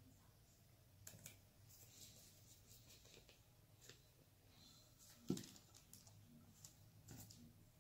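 Faint clicks and taps of painting supplies being handled on a tabletop, with one sharper knock a little past five seconds in.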